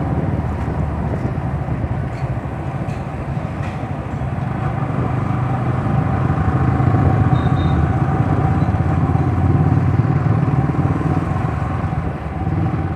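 Yamaha R15 V3's 155 cc single-cylinder engine running while the bike is ridden at town speed, mixed with wind rushing over the microphone. The sound gets a little louder around the middle.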